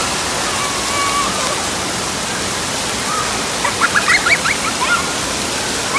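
Steady rushing hiss of splash-pad ground jets spraying water onto a wet tiled floor. Faint children's voices sound in the first second or two, and a run of short high squeals of a laughing child comes near the middle.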